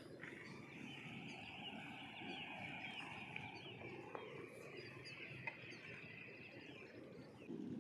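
Faint chorus of many birds chirping together, with a single sharp click about five and a half seconds in.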